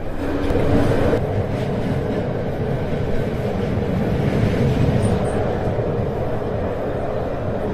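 CityElefant (ČD class 471) electric multiple unit running along the line, heard from inside the driver's cab: a steady rumble of wheels on rails, with a low hum in the first second or so.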